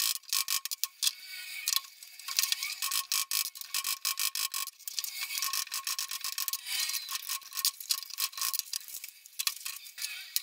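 Steel chisel clicking, knocking and scraping against a microwave oven transformer's laminated iron core as its secondary coil and magnetic shunts are forced out: rapid, irregular sharp metallic clicks with short scrapes between them.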